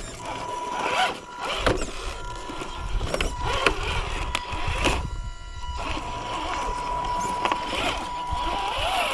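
Traxxas TRX-4 crawler's electric motor and geared drivetrain whining as it crawls over rock, the pitch rising and falling with the throttle. Several sharp knocks of tyres and chassis against stone.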